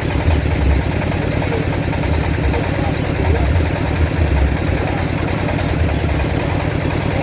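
A circular sawmill's engine running steadily with a low, even throb.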